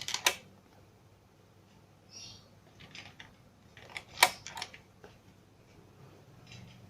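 Scattered sharp clicks and clacks of handling work: a loud click just after the start, a few small taps, then another cluster of clicks about four seconds in.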